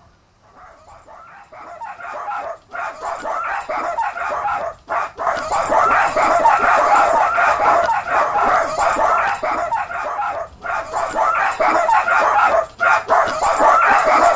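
A pack of small dogs yapping and barking all at once in an overlapping chorus. It swells from faint to loud over the first few seconds, then keeps going with only brief breaks.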